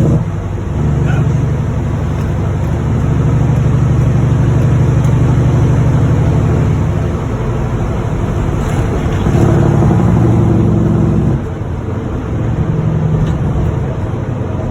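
Heavy semi-truck diesel engine running loud under load, with a steady deep tone that lifts and eases a couple of times and drops off suddenly about eleven seconds in.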